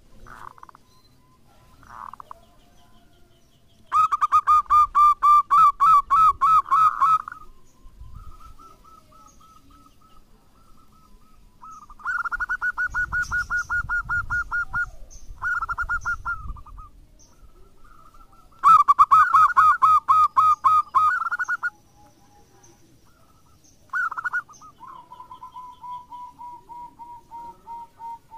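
Zebra dove (perkutut) singing: several bouts of rapid, rhythmic cooing notes a few seconds long, with quiet pauses between them. A softer run of notes comes near the end.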